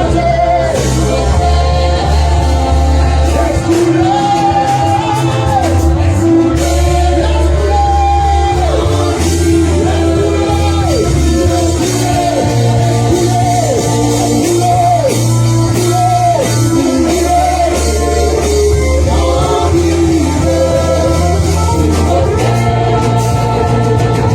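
Live worship music: a band with electric bass and guitar playing slow sustained chords under a voice singing long, sliding melodic phrases.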